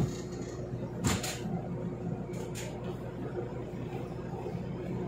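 Street traffic noise: a steady hum of cars on a city road, with one brief louder sound about a second in.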